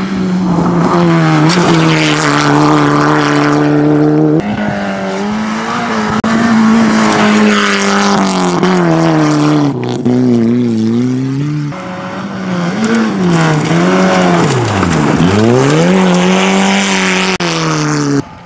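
Rally car engines running hard on a gravel stage, several cars in turn. The engine note climbs and drops with gear changes and lifts, and about fifteen seconds in the revs fall sharply and climb straight back up.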